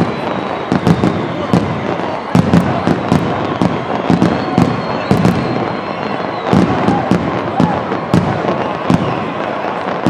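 Fireworks going off: many sharp bangs and crackles in quick, irregular succession over a constant loud rumble.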